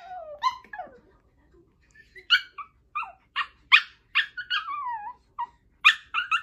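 Puppy giving a string of short, high-pitched yips and whines, several sliding down in pitch, with a pause of about a second just after the start.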